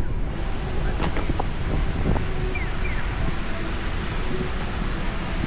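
Steady heavy rain with a low rumble of wind on the microphone, scattered drips and taps, and a pair of short falling chirps that repeats about every three seconds.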